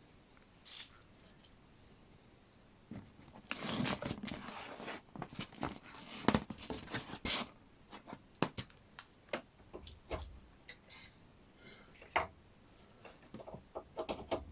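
Handling noises while the sander's cord is being plugged in: a stretch of rustling a few seconds in, then scattered sharp clicks and knocks. The motor is not yet running.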